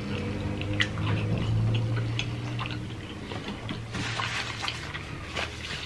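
Close-miked eating sounds: wet chewing and small mouth clicks and smacks from people eating chicken and noodles, scattered and irregular, over a low steady hum.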